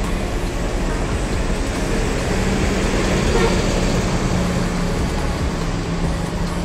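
Coach bus's diesel engine running as the bus drives slowly past and pulls away, loudest about halfway through.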